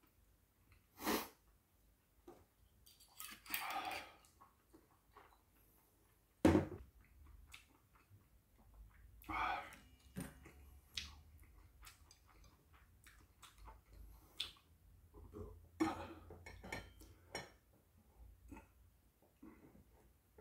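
Eating and tableware sounds: glassware set down on a wooden table with a sharp knock about six seconds in, and wooden chopsticks scraping and tapping a stainless steel bowl of noodles. There is chewing between the clatters.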